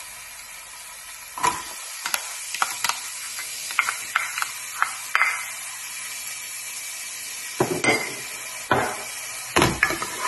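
Diced onion and red pepper sizzling in hot olive oil in a saucepan, with a steady hiss, while a plastic spoon stirs them, scraping and tapping against the pan at irregular moments.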